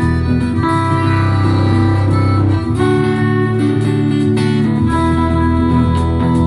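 Acoustic guitar playing an instrumental passage between sung verses, chords changing every second or two.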